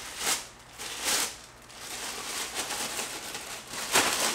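Clear plastic packaging bag rustling and crinkling as a part is handled and pulled out of it, with louder crinkles just after the start, about a second in, and near the end.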